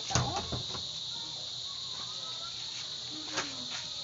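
Steady high-pitched insect chirring, with a brief thump near the start and faint distant voices.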